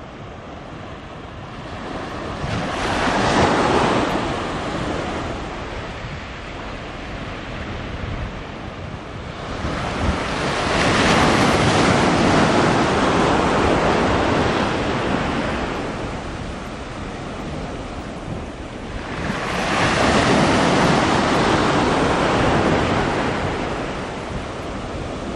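Waves washing onto the shore in three slow surges, each swelling and fading over a few seconds, over a steady low rumble of wind on the microphone.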